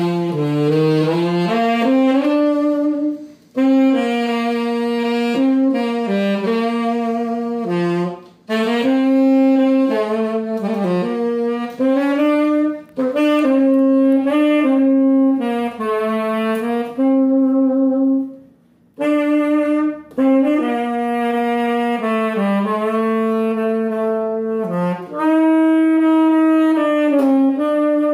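Galasso B-flat tenor saxophone, freshly repadded and regulated, played solo: a slow melody in phrases separated by short breath pauses.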